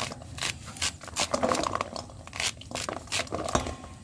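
Kernels being cut off a cob of sweet corn with a knife in quick, uneven strokes, each giving a crisp tearing crunch, with the cut kernels dropping onto a metal plate.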